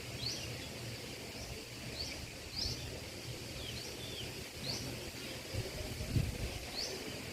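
A bird calling with short, high chirps about once a second, most rising and a couple falling, over a steady low background noise.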